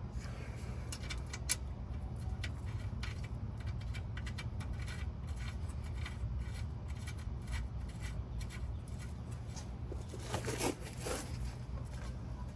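Scattered light clicks and taps of hand tools and metal parts as a bolt is fitted on a car's steering knuckle, over a steady low hum. About ten seconds in comes a louder rasping burst lasting about a second.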